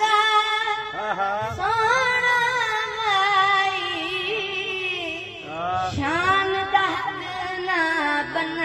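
Solo voice singing a Punjabi naat in long, drawn-out melismatic phrases, with held notes that waver in pitch. There is a brief break about five seconds in before the next phrase glides upward.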